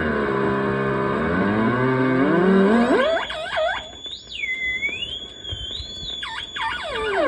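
Estruendo Selenita noise machine with its ring modulator/noise generator and delay both engaged: a stack of electronic tones gliding up and down. About three seconds in it leaps to a single high warbling whine that wavers for a few seconds, then sweeps back down into the lower gliding tones near the end.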